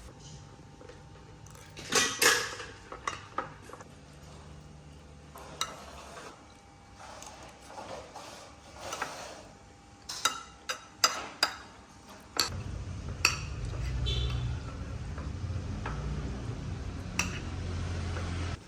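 Kitchen utensils knocking and clinking against pots and dishes, in scattered sharp strikes with a quick run of clinks about two-thirds of the way through. A steady low hum comes in partway through.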